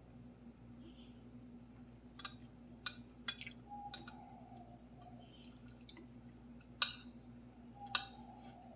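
Spoon and fork clinking and scraping on a plate of fried rice: a handful of short sharp clicks, the two loudest about a second apart near the end, over a faint steady hum.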